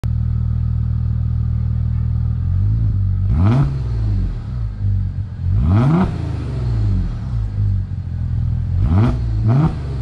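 2001 Audi S4's 2.7-litre twin-turbo V6 heard at the tailpipes, idling steadily and then blipped four times, each rev rising and falling back to idle, the last two close together near the end.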